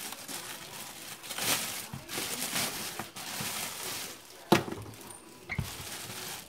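Clear plastic packaging crinkling and rustling as a plastic electric mandoline is handled and pulled out of it, with a sharp knock about four and a half seconds in as the appliance is set down on the counter and a softer thump shortly after.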